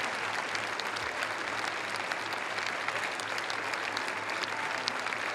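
Large theatre audience applauding steadily: a dense wash of many hands clapping.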